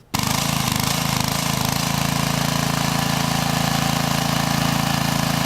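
An engine running steadily at idle with a fast, even pulse, cutting in abruptly.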